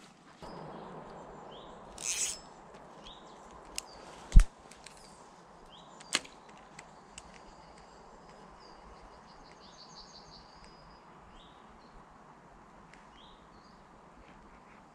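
A cast with a spinning rod: a short whoosh about two seconds in as the wobbler and line fly out, then a few sharp clicks and one louder knock from the rod and reel. Small birds chirp and trill faintly in the background.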